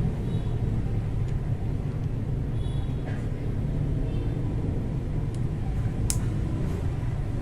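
Steady low background rumble, with a few small clicks; the sharpest comes about six seconds in.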